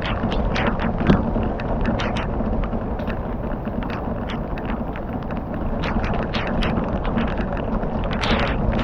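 Fire crackling: irregular sharp pops a few times a second over a steady low rushing noise, with wind buffeting the microphone.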